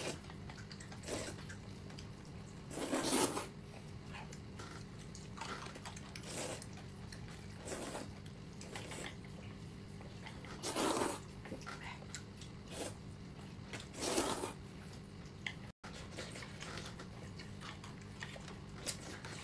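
Someone eating: short bursts of mouth and eating noise every few seconds, the loudest about three seconds in and again near eleven and fourteen seconds, over a low steady hum.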